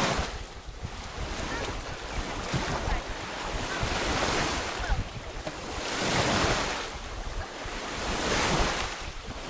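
Waves washing in on the shore, the rush swelling and fading about every two seconds, with wind buffeting the microphone.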